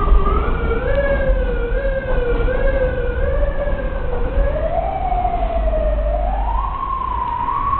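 Subway train's traction motors whining as the train picks up speed, the pitch climbing steadily with a slight waver, over a heavy low rumble of the cars on the track.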